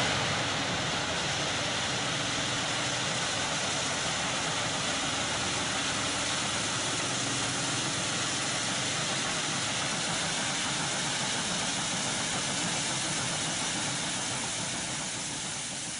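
Steam locomotive working hard as it hauls a passenger train, a steady dense rush of sound that eases slightly near the end.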